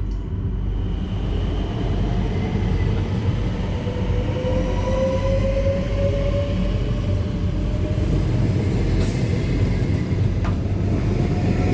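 A passenger train running past with a steady rumble, and a whine that slowly rises in pitch through the middle.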